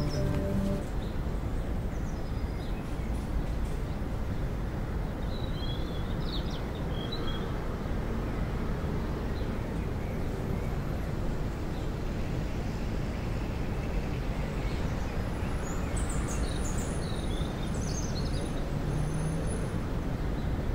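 Steady low outdoor background rumble, with a few short bird chirps about six seconds in and a few more near the end.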